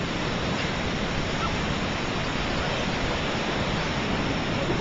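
Ocean surf rushing steadily, mixed with wind buffeting the microphone.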